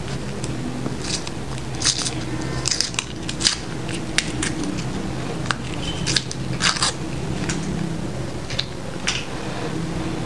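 Crinkling of Maggi seasoning-cube wrappers being peeled open by hand: irregular short crackles, thickest about two to three seconds in and again around six to seven seconds.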